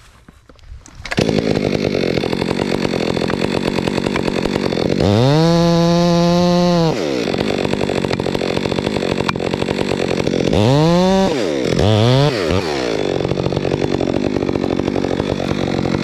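Chainsaw running, starting about a second in: it revs up to full throttle and holds for about two seconds around five seconds in, then revs up twice more, briefly, around eleven and twelve seconds in.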